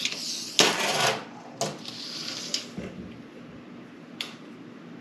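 Steel tape measure being handled along a wooden door: its blade rubs and rasps for about half a second near the start, followed by a few sharp clicks.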